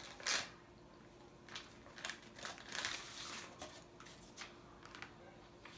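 Paper and plastic packing material rustling and crinkling as it is handled and pulled from a cardboard box, in short scattered bursts.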